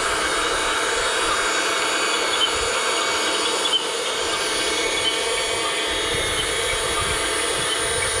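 Electric motors and plastic gearboxes of a Huina 1580 remote-control excavator whining steadily as it works, with a couple of small clicks.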